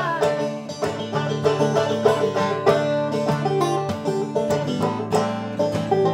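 Five-string banjo picking a fast instrumental break in quick rolling plucked notes, over acoustic guitar backing.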